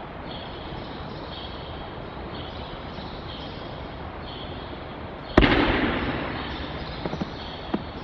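A single loud thud, about five seconds in, that rings on for about a second in a large hall: an aikido partner landing his breakfall on the mat after being thrown. A few light knocks follow as he gets back up. Under it all is a steady hiss with a faint high chirp repeating about once a second.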